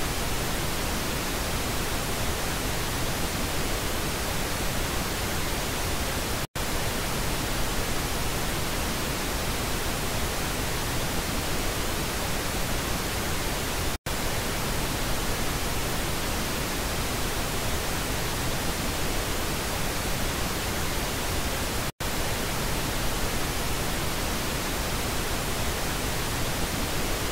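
Pink noise speaker-test signal, a steady even hiss, played alternately through the left and right stereo channels to check speaker wiring. It cuts out for an instant three times, about every seven to eight seconds.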